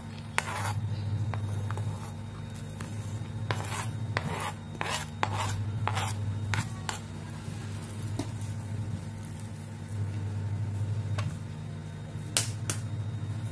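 A spoon scraping sliced spring onions and chillies off a plastic cutting board into a pot, in a run of short, irregular scrapes and taps. A steady low hum sits underneath.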